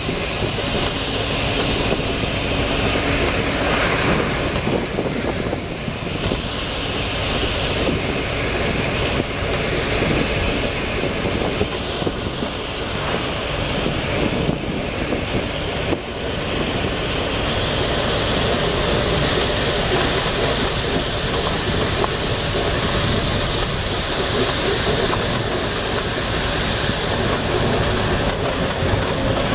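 Steady running noise heard from inside a moving vehicle travelling at speed, continuous throughout.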